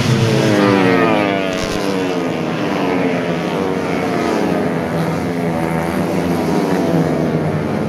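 Four-stroke 130cc race motorcycles passing at high revs one after another, each engine note falling in pitch as it goes by.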